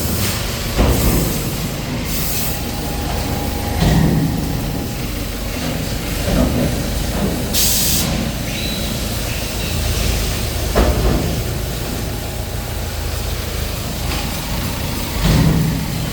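Sheet-metal factory machinery running with a steady low hum, broken by several short sharp hisses of compressed air and a few dull thumps.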